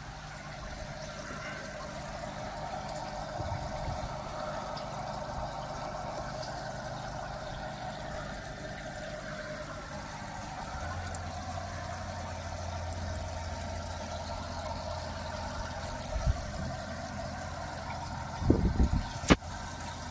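Water trickling steadily in a fish grading vat. A low steady hum comes in about halfway through, and a few loud knocks sound near the end.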